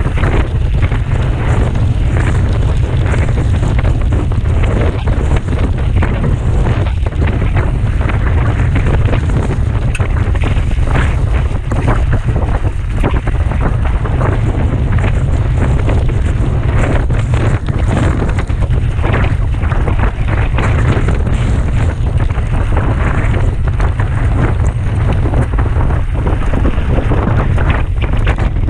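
Wind buffeting hard on the microphone of a camera riding along on a mountain bike during a fast downhill descent, with continuous rattling and knocking of the bike over rough trail.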